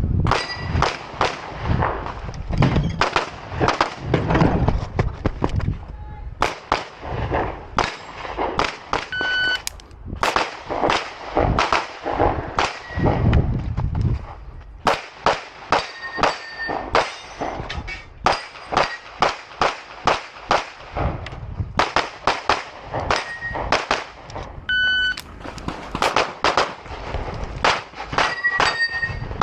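Rapid pistol fire from an IPSC Open Division handgun: quick strings of shots with short breaks between them as the shooter moves, and some ringing tones among the shots. Two short beeps sound, about a third of the way in and again near the end.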